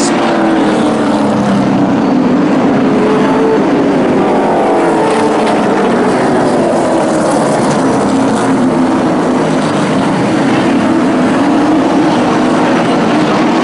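A pack of racing pickup trucks' engines running hard at full throttle, several engine notes rising and falling over one another as the trucks race together.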